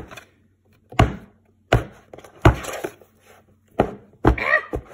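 Clumps of kinetic sand and hands thudding down on a plastic play tray, about six dull thunks at uneven intervals.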